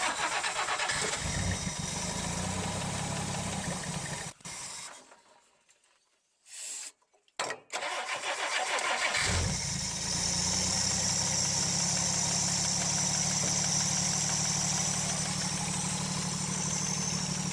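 The 1962 Rambler Classic's starter cranks the engine for about four seconds and stops. After a pause it cranks again, and the engine catches about nine seconds in and keeps running steadily. This is its first start after years of sitting, fed from a temporary gas jug.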